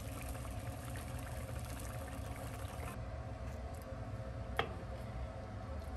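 Milky fish and tofu soup simmering in a wok, with a steady low hum underneath and a metal ladle clinking once against the wok a little over halfway through.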